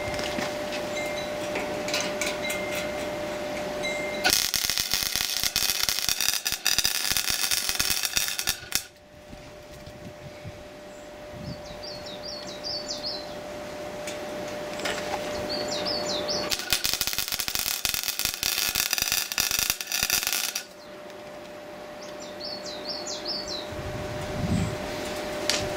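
MIG welder arc crackling and buzzing as it welds joints in a square steel-tube frame, in two bursts of about four seconds each, each cutting off suddenly. Birds chirp in the pauses between.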